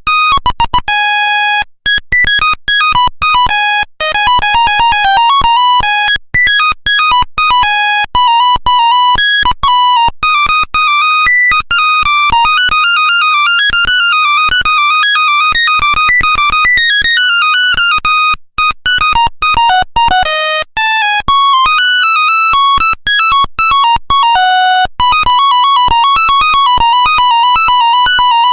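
Nokia 1100 monophonic ringtones playing: a single line of quick, buzzy electronic beeps in a fast-changing melody, with a few brief breaks.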